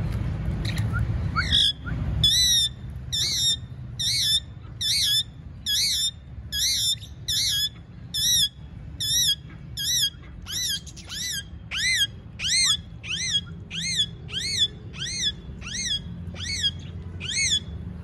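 Indian ringneck (rose-ringed) parakeet squawking over and over: a steady series of short, harsh calls, about three every two seconds, each rising and falling in pitch.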